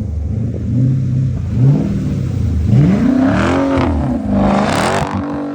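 Car engine revving hard, its pitch wavering at first, then climbing sharply in the second half before dropping back near the end.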